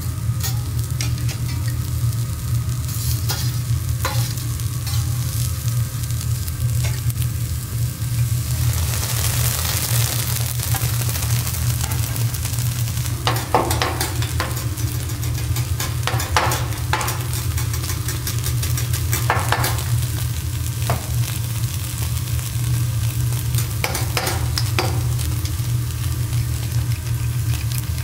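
Vegetables sizzling on a teppanyaki iron griddle. The sizzle swells about nine seconds in, and metal spatulas click and scrape on the plate several times in the second half, over a steady low hum.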